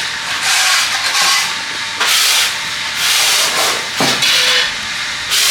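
A poultry-house floor being swept clean: repeated scratchy brushing strokes, about one a second.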